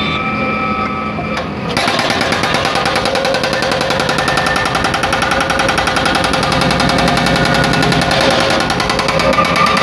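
Excavator-mounted hydraulic breaker pounding concrete road surface with rapid, steady blows, starting about two seconds in after a steady machine hum.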